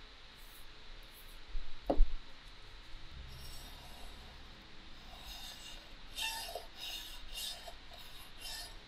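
Steel blade of a karagasa plane, a wood turner's smoothing tool, stroked back and forth on a wet whetstone: a run of short scraping strokes, about two to three a second, from about three seconds in. A single sharp knock comes about two seconds in.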